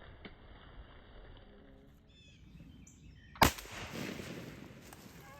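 A single blast from a Remington 1100 LT-20 20-gauge semi-automatic shotgun, about three and a half seconds in, fired at a turkey. It is one sharp report with a short tail.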